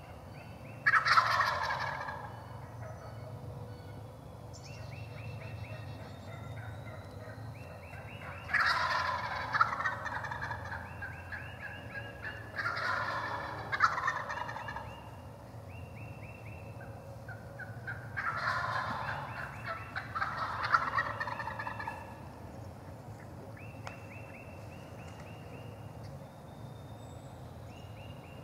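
Wild turkey gobblers gobbling, about seven loud rattling gobbles, several coming in quick pairs as more than one bird answers. Between them come short runs of evenly spaced yelping notes.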